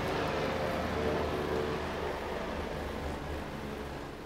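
Steady mechanical hum with a hiss. A few held tones drop out about two seconds in, and the whole sound fades gradually.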